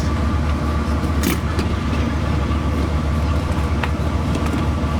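Steady low mechanical drone with a constant hum, with a few light clicks and knocks over it.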